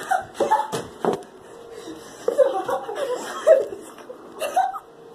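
Children laughing and gasping: short breathy bursts of laughter in the first second, then more laughter from about halfway through, just after ice water has been poured over one of them.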